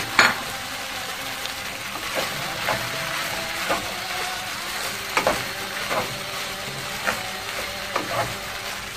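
Green peas frying in oil in a non-stick pan with a steady sizzle, as shelled fava beans are dropped in by hand, landing with scattered soft clicks, about one every second or so.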